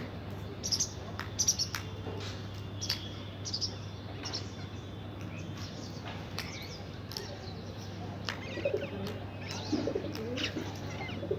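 Birds chirping in many short, sharp notes, scattered irregularly, over a steady low hum.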